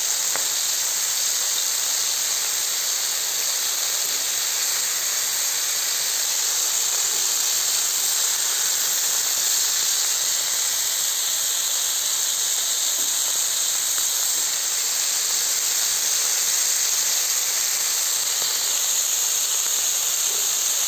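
Sausages sizzling in hot fat on a metal saj griddle: a steady, high hiss.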